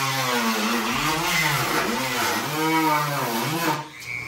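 Electric power tool running, its motor pitch dipping and recovering again and again as it bogs under load and frees up, then stopping shortly before the end.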